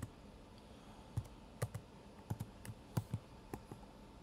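Typing on a computer keyboard: a dozen or so short key clicks at an uneven pace as a short word is typed in.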